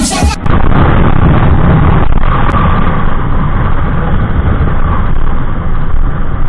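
Music cuts off suddenly about half a second in. Then comes the loud running noise of a Honda Click 125i scooter with an Exos X6 exhaust, ridden at speed, as a dense low rush.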